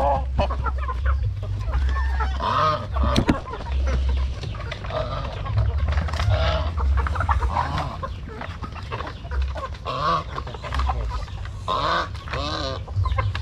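A flock of chickens clucking and calling as they crowd round for feed, with a goose honking among them.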